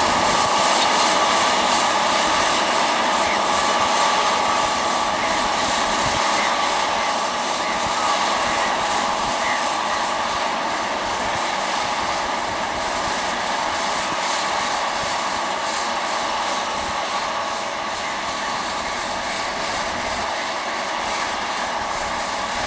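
Tractor engine and an Accord pneumatic seed drill running steadily while drilling: a continuous droning hum that fades slightly as the rig moves along.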